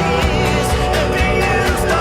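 Music playing: a song with a singing voice over instruments.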